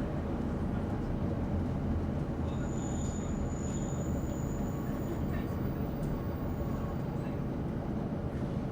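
Steady low rumble of a Class 156 Sprinter diesel multiple unit, heard from inside the carriage. A faint high-pitched tone sounds for about two seconds a few seconds in.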